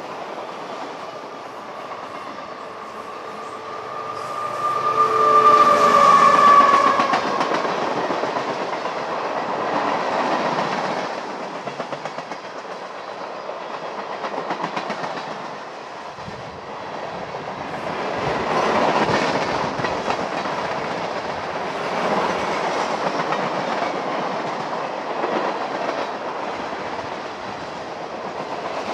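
Train rolling past, its wheels clacking over rail joints, the sound swelling and fading several times. Over the first several seconds a held tone of several pitches builds to its loudest about six seconds in, then dies away.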